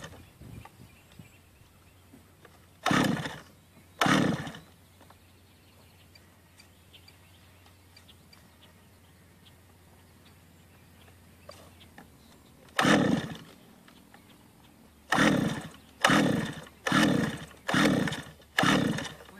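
Recoil pull-starter yanked again and again on the two-stroke chainsaw engine of a large RC helicopter, each pull a short rasp of the engine turning over without catching: two pulls a few seconds in, one more after a long pause, then about five quick pulls in a row near the end.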